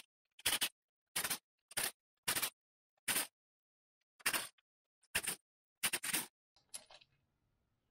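A socket ratchet clicking in about eight short bursts as it is swung back and forth, loosening the cam cap bolts on a four-stroke dirt bike's cylinder head. The last bursts, near the end, are fainter.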